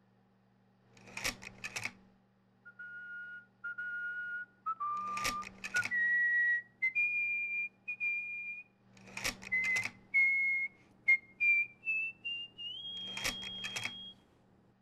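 Clusters of sharp clicks recurring every few seconds, with a run of held, pure whistle-like notes between them that mostly step upward in pitch, ending on the highest note.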